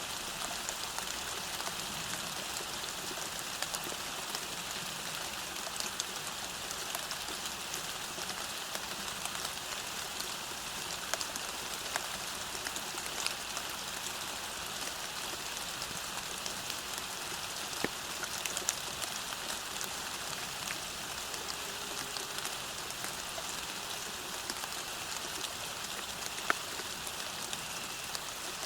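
Steady rain falling, with scattered sharper drops striking close by.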